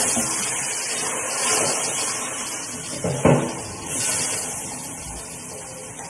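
Kitchen tap running with a rushing hiss as a cup is filled with water, swelling and easing a few times. A sharp knock about three seconds in.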